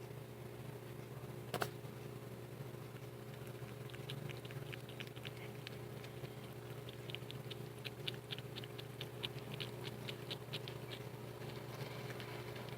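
A cat making quick, light ticking sounds, about three to four a second, with one sharp click about one and a half seconds in.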